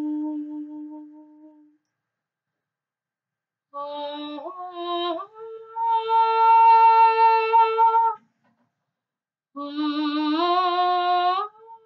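A woman's voice singing wordless, improvised tones: a held note that fades out, a pause of about two seconds, then short phrases stepping upward into a long steady held note. After a brief break, a last phrase climbs in steps with a slight waver.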